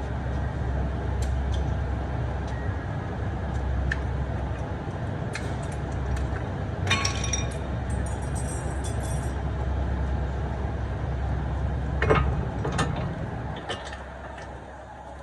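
Metal clinks and knocks of hand tools and brake parts being handled, with a cluster of ringing clinks about seven seconds in and a sharp knock about twelve seconds in. Under them a steady low rumble fades away near the end.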